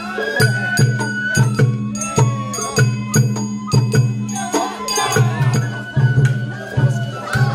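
Sawara-bayashi festival music played live on a parade float: a bamboo flute holding a high melody over low taiko drum beats and sharp percussion strikes at a steady beat.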